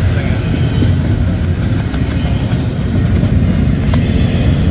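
Double-stack intermodal well cars rolling past: a steady rumble of steel wheels on the rails, with a few faint clicks.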